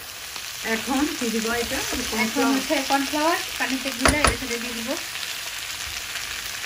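Chicken manchurian with bell peppers sizzling in a frying pan as it is stirred with a wooden spatula, with a sharp knock of the spatula against the pan about four seconds in. A person's voice is partly heard over the frying in the first half.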